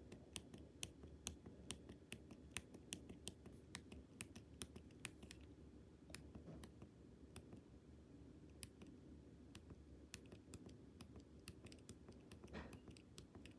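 Faint clicking on a laptop, short sharp clicks coming quickly and unevenly for about the first five seconds, then sparser, as photos are stepped through one by one.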